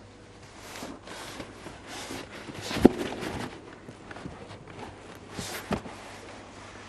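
A few knocks and shuffling noises, with a sharp thud about three seconds in and another near six seconds.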